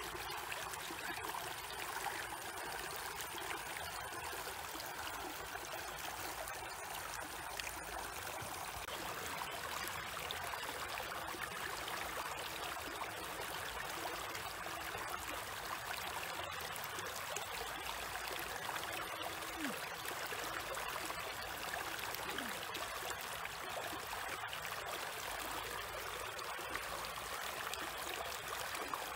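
Shallow stream flowing steadily and splashing over a small drop in the streambed.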